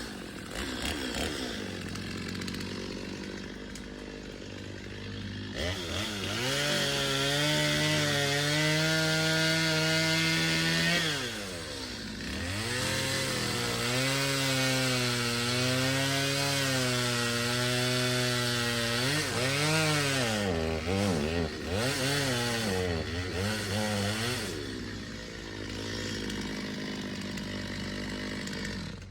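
Two-stroke chainsaw idling, then run up to full throttle and cutting into a dead tree for felling. Its engine pitch sags and recovers as the chain bogs in the wood, eases off briefly, then goes back in. It drops back to idle for the last few seconds.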